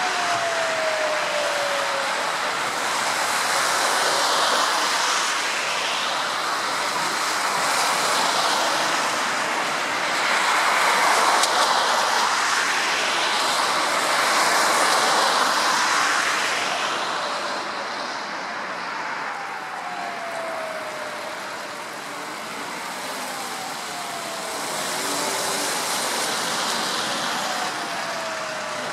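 Road traffic on a wet, snowy street: the hiss of tyres on slush swells and fades as vehicles pass. Several short falling tones come through near the start and again later on.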